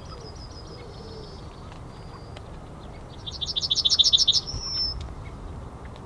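Male yellowhammer singing one song phrase about three seconds in: a fast run of about ten repeated high notes, ending in a single longer note. A fainter run of high notes sounds near the start.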